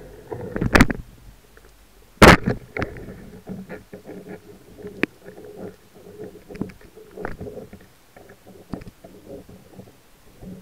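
A speargun fires underwater with a sharp, loud crack a little over two seconds in, after a shorter burst of noise about a second earlier. Scattered clicks and knocks follow over a low underwater rumble.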